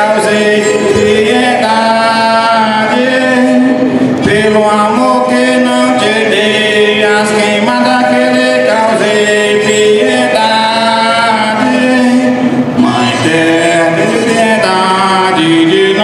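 A man singing a slow, chant-like folk song while bowing a fiddle, a steady low note held under the voice.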